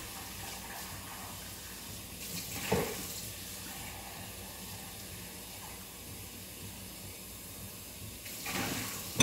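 Kitchen faucet running steadily into the sink while a container is rinsed under the stream, with a brief knock about three seconds in.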